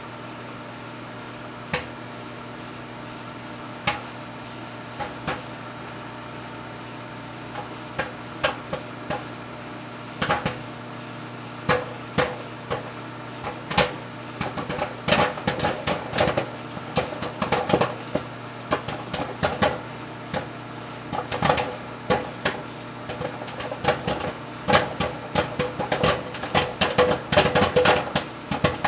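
Microwave oven running with a steady hum while a bag of Angie's Boom Chicka Pop Real Butter microwave popcorn pops inside. The first single pops come a few seconds apart, then speed up into rapid popping near the end as the kernels reach full popping.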